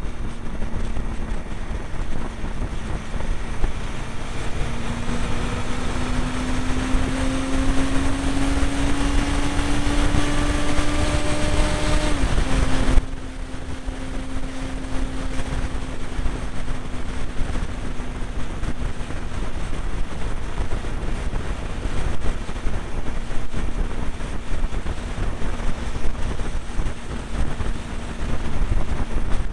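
Motorcycle engine at motorway speed under a heavy rush of wind. The engine note climbs for several seconds, then drops abruptly about thirteen seconds in as the wind hiss also falls, and runs steady after that.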